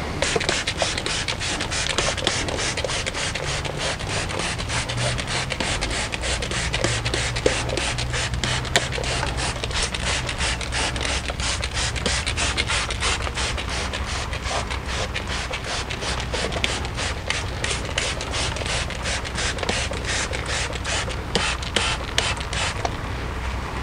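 Hand trigger spray bottle squeezed rapidly, a few times a second, each squeeze a short spritz of purple degreaser onto the greasy rear drum brake shoes and backing plate. The spraying stops shortly before the end.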